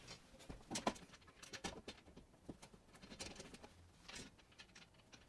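Faint, scattered small clicks and scrapes of a metal electrical panel cover being pressed against the wall while its cover screws are started by hand.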